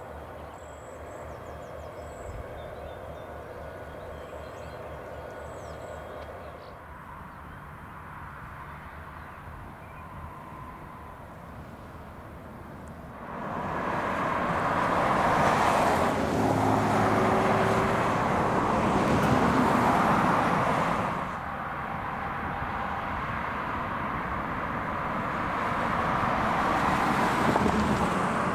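A freight train rolling past with a caboose at the rear. About thirteen seconds in, a much louder rushing sound with a low engine note comes in as an EMD diesel locomotive leading a work train approaches. Near the end, road traffic passes on the highway beside the track.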